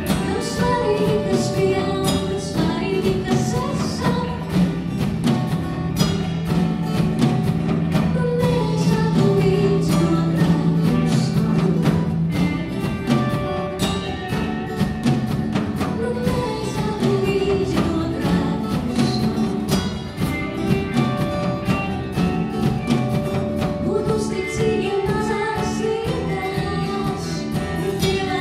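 A woman singing a song live with a band of acoustic and electric guitars and a drum kit.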